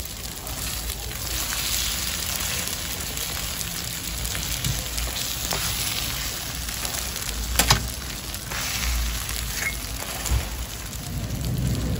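Hotteok sizzling in oil on a flat griddle, a steady frying hiss. A few sharp metal clicks from tongs and round presses on the griddle break through, the loudest a little under two-thirds of the way in.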